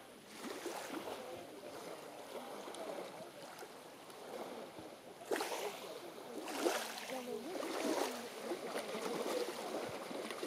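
Lakeshore ambience: water lapping steadily, with two brief louder rushes a little past the middle.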